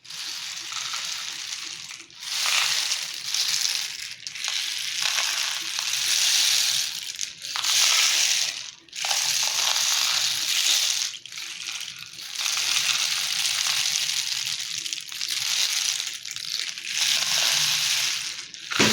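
Homemade rain stick, a cardboard diploma tube lined with toothpicks and holding popcorn kernels, tipped back and forth again and again: the kernels cascade down past the toothpicks in a rushing hiss that lasts about two seconds per turn, with short breaks each time it is turned over.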